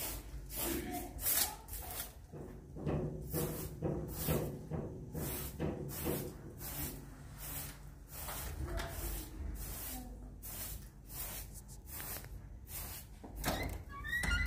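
Short straw hand broom sweeping a carpet: brisk swishing strokes, about two or three a second.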